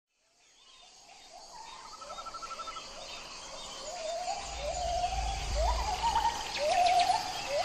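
A series of rising whooping animal calls, repeated more often and louder toward the end, over a steady high insect hum. A low rumble of handling noise comes in the middle as the camera is swung about.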